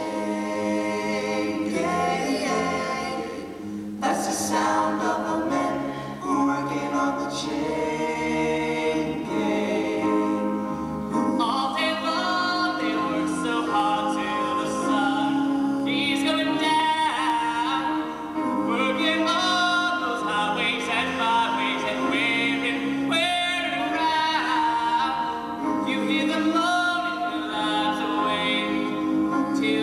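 Male a cappella vocal group singing in close harmony through hand-held microphones, the chords shifting every second or so.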